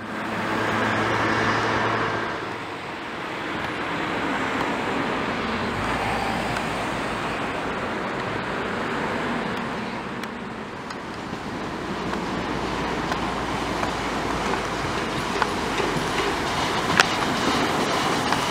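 Steam locomotive running along the tracks and passing close by, a steady noisy rush of the engine and wheels on the rails. There is a single sharp click near the end.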